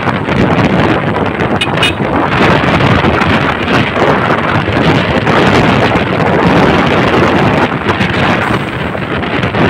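Strong wind buffeting on the microphone over the steady rumble of a moving vehicle on the road.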